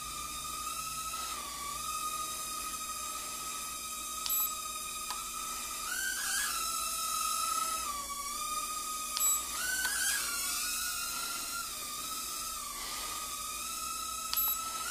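Cheerson CX-10 nano quadcopter's tiny motors and propellers whining steadily in a hover, the pitch rising briefly a few times as the throttle is pushed, with three short ticks about five seconds apart.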